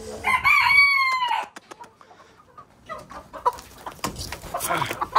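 A rooster crows once, a single call of a little over a second that sags in pitch at the end. A few sharp clicks follow, then chickens cluck and scuffle, building toward the end.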